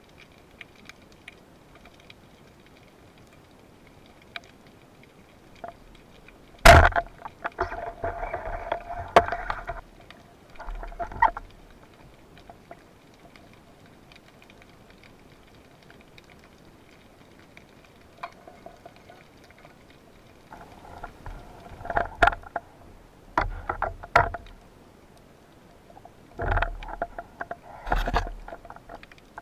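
Underwater water noise: a sharp click about seven seconds in, then several bursts of bubbling and rushing water a few seconds long, with faint ticks in between.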